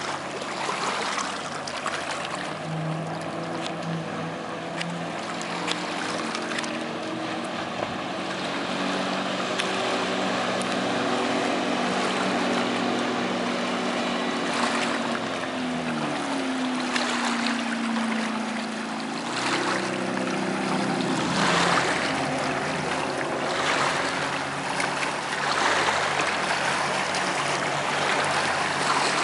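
A Cobalt 24SD wake boat's engine drones at speed as the boat passes, over a steady rush of water and wind. Its pitch drops about halfway through and shifts again a few seconds later.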